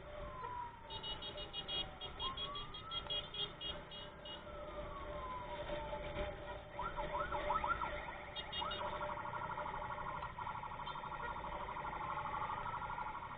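Electronic emergency sirens: a slow wail rising and falling in pitch, then a quick run of yelps about seven seconds in that gives way to a fast warble, with a second slow wail sounding beneath it near the end.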